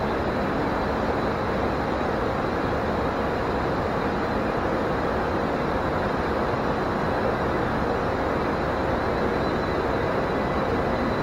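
Steady, unbroken ambient noise inside a train station hall: a dense low rumble and hum with a few faint steady tones, and no distinct events.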